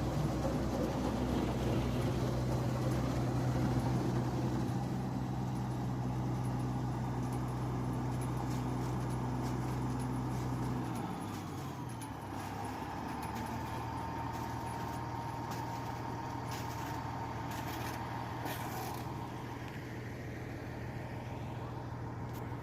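Diesel engine of a heavy construction machine running steadily. About halfway through, its speed drops and it settles into a lower, quieter run.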